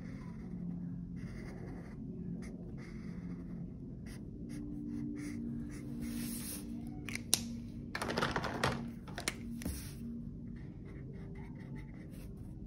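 Felt-tip marker scribbling on paper in quick short strokes as a drawing is coloured in. About seven seconds in comes a sharp click, then a louder clatter and rustle for a couple of seconds.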